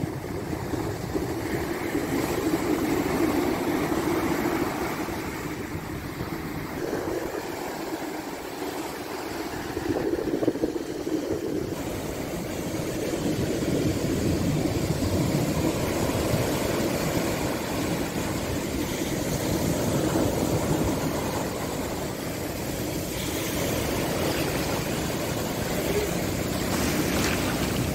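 Sea surf breaking and washing up a sand beach: a steady rushing noise that swells and eases every few seconds, with wind rumbling on the microphone.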